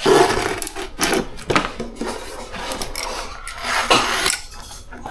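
Rubbing and scraping of vinyl floor covering being handled and worked into place, with a few sharp knocks at about one, one and a half and four seconds in.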